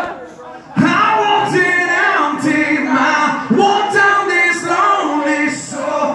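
Live rock show vocals: a male lead singer singing into a microphone, heard together with many voices from the crowd. The sound drops briefly at the start, then the singing comes in under a second in.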